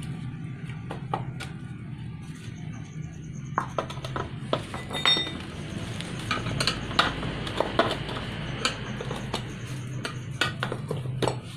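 Steel tyre lever clinking and scraping against the rim of a spoked motorcycle wheel as the tyre bead is pried off, in irregular metallic clicks that start about three and a half seconds in.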